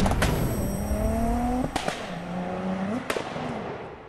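Produced logo-sting sound effect of a car engine revving up in rising sweeps, with sharp whooshing hits about two seconds in and again about three seconds in. It fades out near the end.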